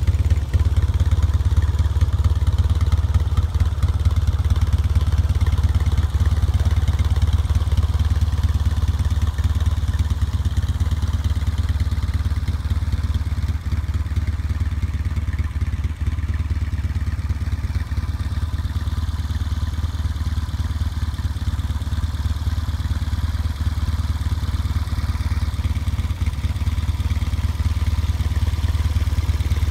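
1974 Yamaha TX650's air-cooled parallel-twin engine idling steadily with a low, even exhaust note, a little quieter through the middle.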